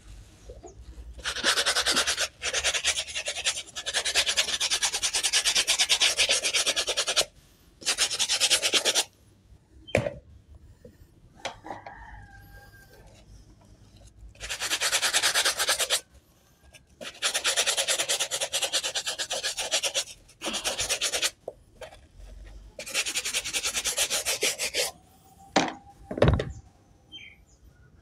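Stiff-bristled plastic brush scrubbing a wet, soapy rubber shoe outsole in several bouts of rapid back-and-forth strokes, with short pauses between them. Two sharp knocks fall in the pauses, about ten seconds in and near the end.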